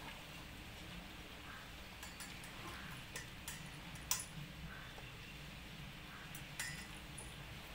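Dalmatian puppies eating and licking food from stainless steel bowls: faint lapping and chewing, with a few scattered sharp clinks of tongue and food against the metal, the loudest about four seconds in.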